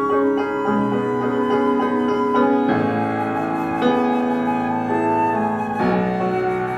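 Flute and piano playing a contemporary classical piece: a held flute note over repeated piano notes, with fuller piano chords coming in about three seconds in and again near the end.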